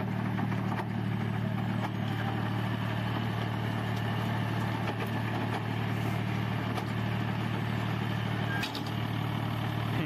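Tractor diesel engine running steadily under load, driving a rotary super seeder whose rotor blades churn through soil and straw, heard as a constant hum under a dense rushing, rattling noise.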